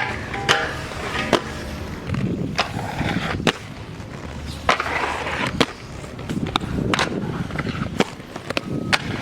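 Skateboard rolling and grinding on the park's obstacles, with its trucks scraping in longer rough stretches. Sharp clacks of the board popping and landing come roughly once a second.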